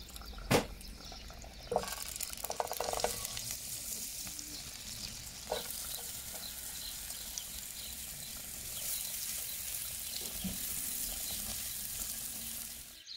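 Chopped onion frying in melted butter in a nonstick frying pan: a steady sizzle that grows fuller once the onion is in, with a few sharp taps of utensil and plate against the pan in the first seconds, the loudest just after the start.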